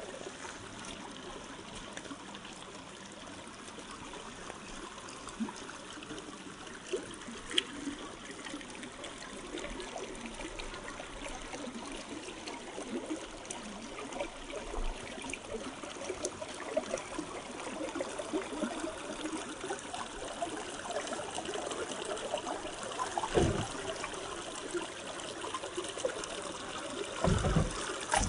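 Shallow river water trickling and splashing over rocks, a steady noisy wash dotted with small clicks. Two short low thumps come near the end.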